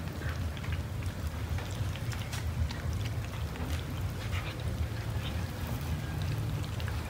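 A crowd of cats eating cooked rice: many small wet chewing and lapping clicks, scattered and irregular, over a steady low rumble.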